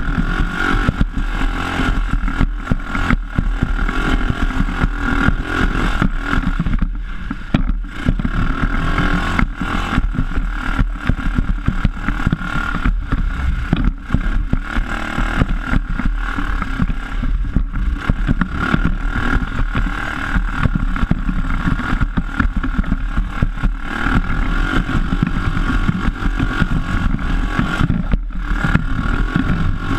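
PGO off-road buggy's engine running under way on a rough dirt track. Constant irregular knocks and rattles of the chassis come through as it jolts over the bumps.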